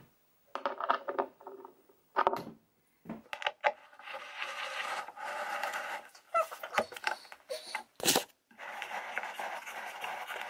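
Allen key turning a bolt in the chipboard top panel of an IKEA Kallax shelf unit: a few light clicks, then stretches of rough metal-on-wood scraping, with one sharp knock near the end.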